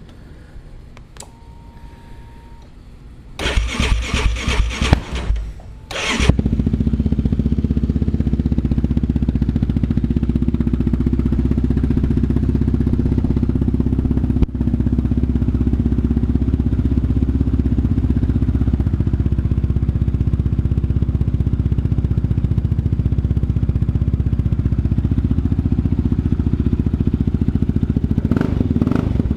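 Yamaha Raptor 700 ATV single-cylinder engine breathing through Big Gun Evo R dual aftermarket exhaust. The electric starter cranks for about two seconds, the engine catches about six seconds in, and it then idles steadily, picking up slightly near the end.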